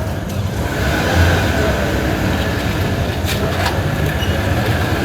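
City alley ambience: a motor vehicle's engine runs with a low, steady hum under general street noise. Two short, sharp clicks come a little past three seconds in.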